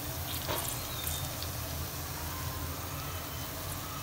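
Faint sizzling of fried onions in a steel pot over a steady low hum, with a few soft taps as raw keema kebabs are laid onto the onions.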